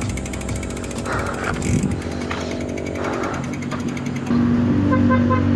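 Mountain bike's freewheel hub ticking rapidly and evenly while coasting. About four seconds in, a steady low hum starts abruptly and grows louder.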